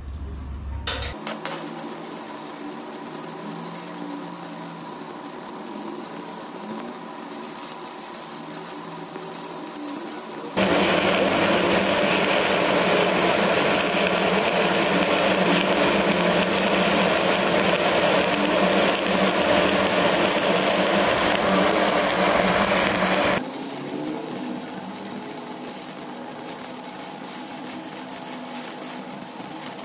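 Stick-welding arc crackling and sizzling steadily as the electrode burns. It starts after a couple of sharp snaps about a second in, and is much louder for about thirteen seconds in the middle.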